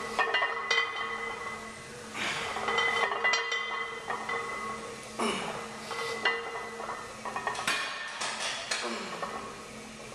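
Iron barbell plates clinking and rattling on a loaded bar during bench press reps, in bursts of metallic clinks every few seconds.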